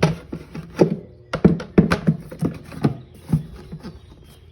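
Plastic air box of a Honda Rancher 350 ATV being worked back into the frame, bumping and knocking against it: a string of uneven thunks and taps, thinning out after about three and a half seconds.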